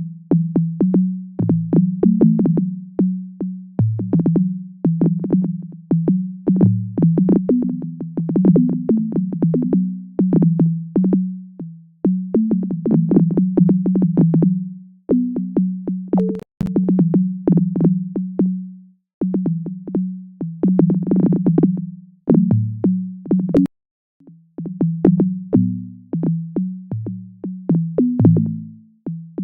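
Synthesized MIDI notes sonifying earthquake data: short tones, each starting sharply and fading, mostly in one low-mid register with occasional deeper notes, at an irregular pace with brief gaps. Each note stands for an earthquake; the deeper notes mark deeper quakes, and the spacing follows the time between events.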